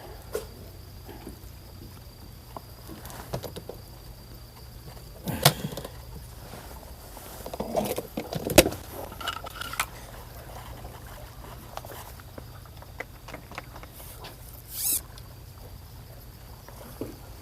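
Scattered small clicks and taps of fishing gear being handled, with two louder knocks about five and a half and eight and a half seconds in, and a brief hiss near the end.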